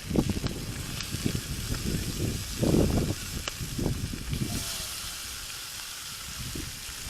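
Food sizzling in hot oil, with the hiss swelling louder about four and a half seconds in, over irregular low rumbling bumps.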